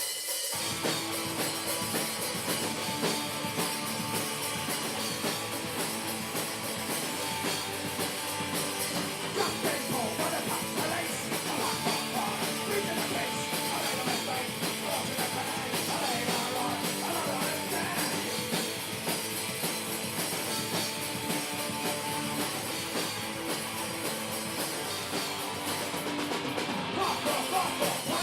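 Punk rock band playing a fast song, with a full drum kit driving it and a singer over the top.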